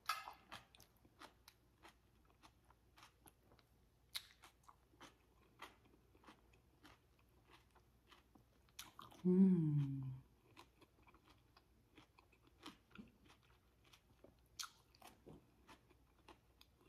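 A person chewing food with the mouth close to the microphone: many small wet mouth clicks and light crunches. About nine seconds in comes the loudest sound, a short hum through closed lips lasting about a second and falling in pitch.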